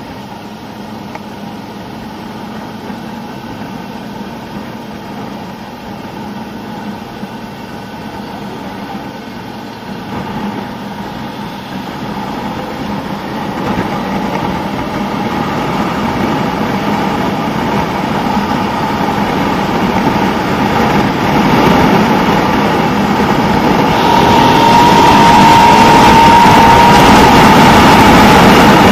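Suzuki SV650N's V-twin engine running while riding, mixed with wind rushing over the microphone. The sound grows steadily louder from about ten seconds in and is loudest near the end.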